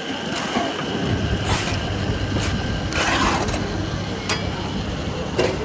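Chestnuts churned through hot black sand in a steel roasting pan by a rotating stirring arm: a steady grinding rattle, with a few sharp scrapes or clacks from the hand scraper against the pan.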